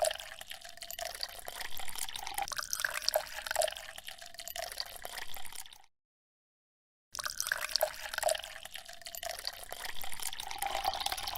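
Water trickling and dripping with small splashes and ticks, cut off by about a second of dead silence halfway through, then resuming.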